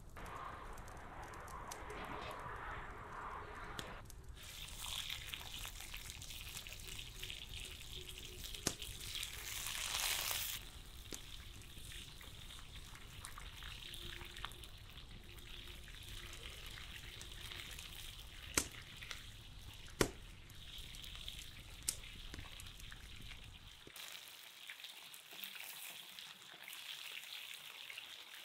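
Raw chicken pieces sizzling in hot oil in a frying pan as they are laid in one by one. The sizzle swells to its loudest about ten seconds in, and a few sharp clicks come through later.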